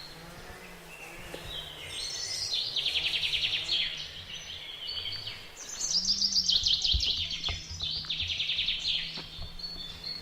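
A songbird singing two phrases of fast trilled notes, a short one about two seconds in and a longer one that falls in pitch from about six seconds, over a low steady hum.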